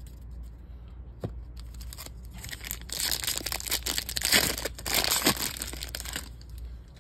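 Wrapper of a 2023 Topps Series 2 baseball card pack being torn open and crinkled by hand: a crackling rustle that starts about a second and a half in, is loudest in the middle, and stops shortly before the end.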